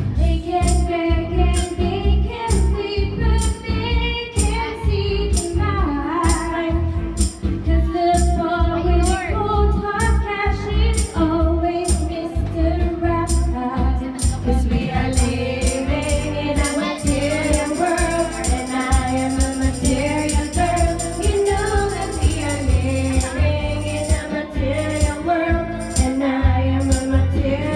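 A woman singing karaoke into a handheld microphone over a pop backing track with a steady beat.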